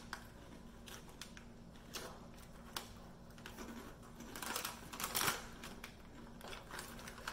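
A plastic snack-chip bag crinkling and crackling as it is handled and folded, in scattered clicks with a denser stretch about four to five seconds in, along with crunching of crisp rice-cake cracker chips being chewed.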